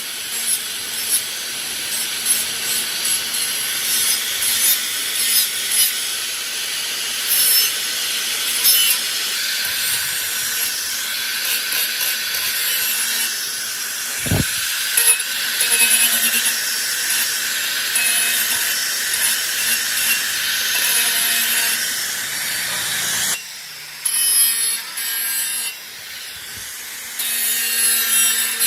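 A power tool abrading rusty metal: a steady, high scraping hiss over a faint motor tone. Near the end it turns to short stop-start passes, and there is a single low thump about halfway.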